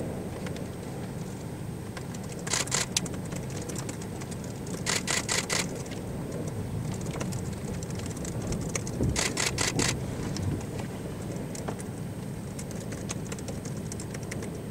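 A DSLR camera shutter firing in three short bursts of rapid clicks, a few seconds apart, each lasting about half a second, over a steady low rumble.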